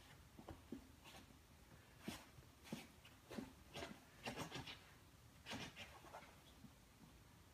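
A small puppy's paws scrabbling at a bed's cotton duvet as it jumps up against the bed edge: faint, short scratchy rustles, a dozen or so in quick irregular runs.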